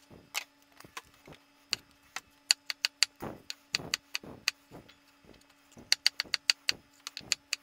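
Chef's knife dicing a red bell pepper on a wooden cutting board: sharp knocks of the blade on the board at irregular spacing, some in quick runs of several strokes.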